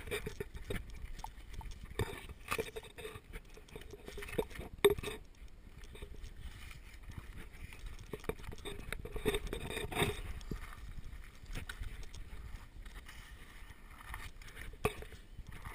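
Footsteps on a dirt forest trail, quick and uneven, mixed with scattered knocks from a handheld camera being jostled. The loudest knocks come about five seconds in and again about ten seconds in.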